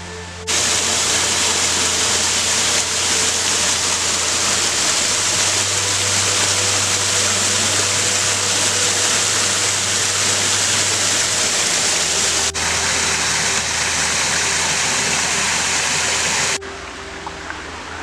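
Small forest-stream waterfall, partly frozen, with water rushing and splashing over a rock ledge. The loud, steady rush starts abruptly about half a second in, breaks for a moment about two-thirds through, and cuts off sharply near the end.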